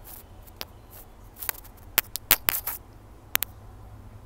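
Hands handling a ring light's plastic phone holder: a scatter of short sharp clicks and taps, bunched together around the middle.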